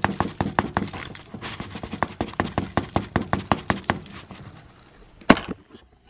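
Quick light tapping, several taps a second, as a folded paper plate is tapped to shake ground coffee down into a glass jar. The tapping fades out after about four seconds, and a single sharp knock comes near the end.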